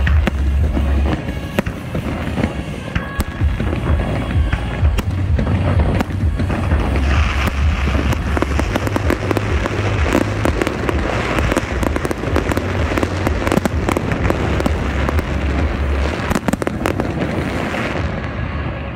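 Fireworks bursting in rapid succession with dense crackling, thickest in the middle and thinning out near the end, with music playing alongside.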